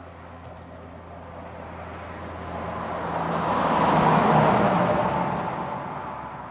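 A heavy truck passing by at highway speed: its engine and tyre noise build up, peak about four seconds in, then fade away.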